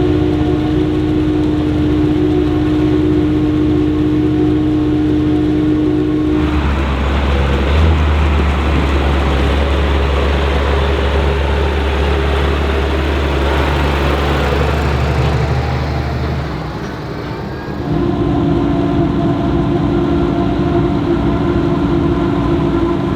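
Silage harvesting machinery working: a forage harvester and tractors running under load. A steady high machine whine changes abruptly about six seconds in to a deep engine rumble, then the whine returns near the end.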